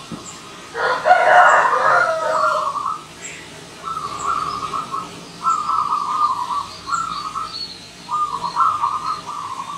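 Zebra dove singing: a series of short, rapid trilled cooing phrases, repeated with brief gaps. About a second in, a louder, fuller call from another bird sounds over it for under two seconds.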